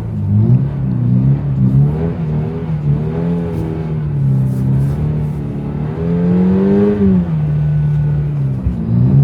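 Toyota GR86's 2.4-litre flat-four engine revving up and down under throttle while the car slides on snow. Its pitch rises and dips repeatedly, climbs highest about seven seconds in, then drops away sharply near the end.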